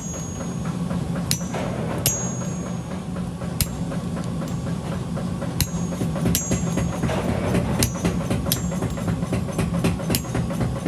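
Hand hammer striking metal at the forge, irregular blows about once a second, each leaving a brief high ring, over a steady low machine drone.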